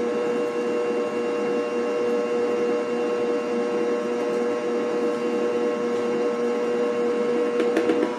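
Electric stand mixer running steadily, its motor giving a constant whine over the churning of thick cake batter, with a few light taps near the end.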